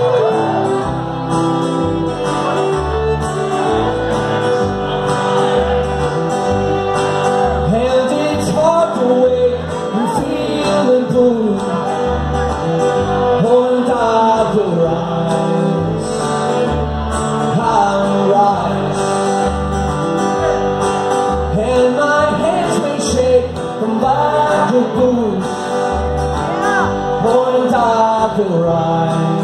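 Live acoustic folk song: a man sings to his strummed acoustic guitar while a fiddle is bowed alongside.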